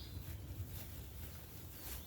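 Outdoor ambience with a steady low rumble and a faint bird call near the end.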